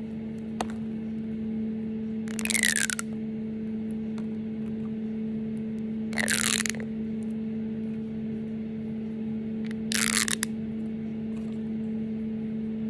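Pink plastic pop tube toy worked by hand, its ribbed sections giving three short rasps with a falling pitch, about four seconds apart. A steady low hum runs underneath.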